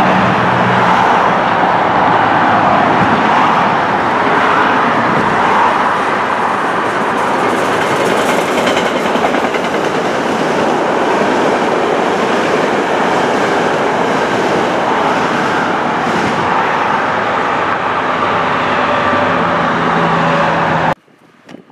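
SEPTA AEM-7 push-pull train passing close by at speed: a loud, steady rush of wheels on rails. A low hum sits under it near the start and again near the end. The sound cuts off suddenly about a second before the end.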